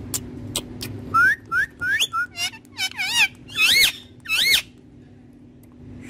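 Indian ringneck parakeet whistling: a few sharp clicks, then a run of short rising whistles, then louder wavering, warbling whistled calls.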